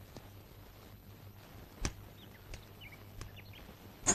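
Quiet background with scattered faint high chirps and two sharp clicks: one a little before two seconds in, and a louder one near the end.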